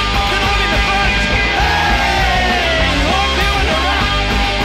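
Punk rock recording played from a vinyl record: a loud, dense full band with a shouted vocal.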